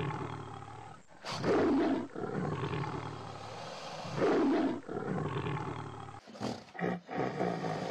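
Big cat roaring: a loud roar about a second and a half in and another about four seconds in, with a lower rough rumble between and short bursts near the end.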